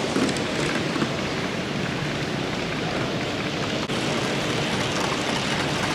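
Steady rushing background noise in a room with a running model railway layout, with no single clear event standing out.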